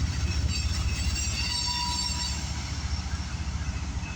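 Freight train rolling past, a steady low rumble with thin high squeals from the wheels on the rail.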